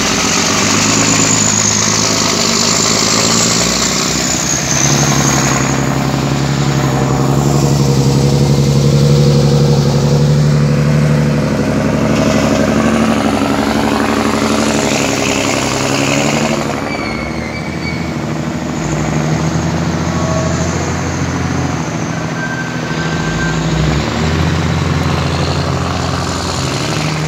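Heavy diesel engines of a dump truck and a wheel loader running, their speed rising and falling several times.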